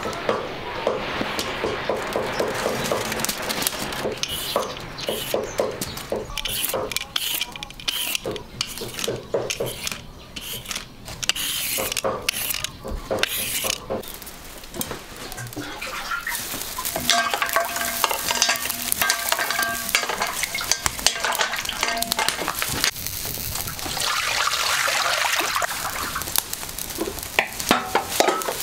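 Food frying in a pan while it is stirred: a utensil scrapes and knocks against the pan over a sizzle. Near the end there is a louder stretch of steady hiss.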